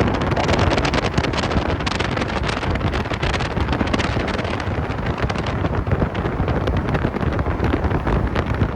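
Wind buffeting the microphone over the steady road noise of a vehicle travelling at freeway speed. No siren is heard.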